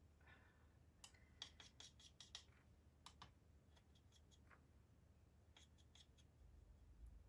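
Near silence broken by faint scattered ticks and light scrapes of a paintbrush mixing watercolour paint in a palette. They come mostly in the first half and again briefly near the end.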